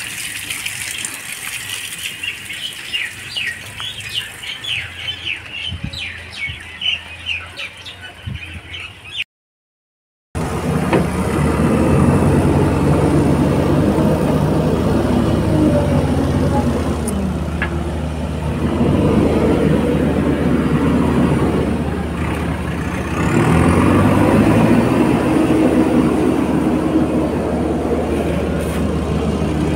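Small birds chirping, then, after a second of silence, the diesel engine of a JCB backhoe loader running loudly as it drives over sand, the engine note swelling and easing a couple of times.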